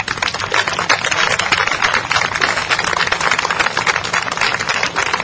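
Crowd applauding, many hands clapping at once; the applause starts suddenly.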